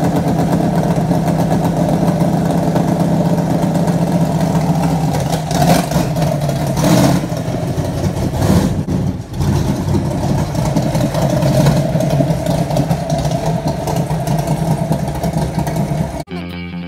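A dirt-track super late model race car's V8 engine running, with a few louder revs in the middle as the car drives around the yard. Near the end it cuts off abruptly into music.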